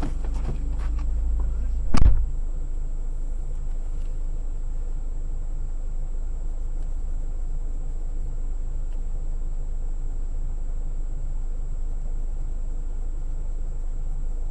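Steady low rumble of a vehicle engine idling, with one loud thump about two seconds in.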